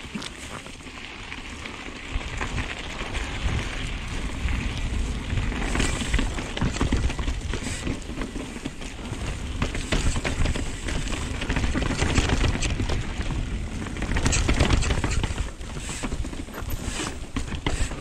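Nukeproof Dissent 290 RS downhill mountain bike riding down a rough dirt and rock trail. Wind rushes over the mounted camera's microphone and the tyres rumble over the ground, with frequent sharp clicks and clatter from the bike. The noise grows louder about two seconds in as the bike picks up speed.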